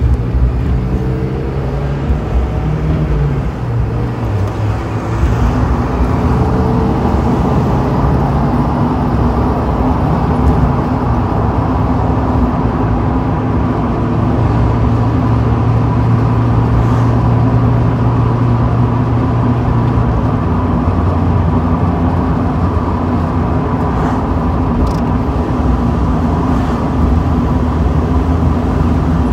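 Mazda Miata's four-cylinder engine running while driving with the top down, heard together with wind and road noise from the open cockpit. The engine pitch rises and shifts over the first few seconds, then settles into a steady cruise.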